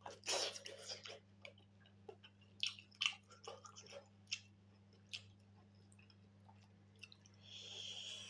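Close-miked chewing of pork and rice: wet mouth clicks and smacks, dense for the first few seconds and then sparser, with a short rushing hiss near the end.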